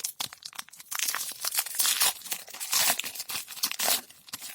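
A foil Pokémon booster pack wrapper being torn open and crinkled by hand. It starts as scattered small crackles, then becomes a dense, continuous crinkling from about a second in.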